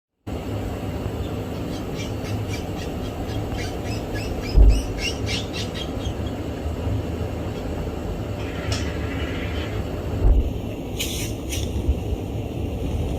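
Five-day-old Djungarian hamster pups squeaking in the nest: a run of short, high squeaks in quick succession, with a few more later, over a steady low rumbling background noise.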